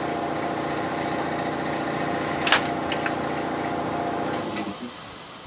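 Air compressor motor running with a steady hum, with two sharp clicks about two and a half seconds in. The hum fades out near the end.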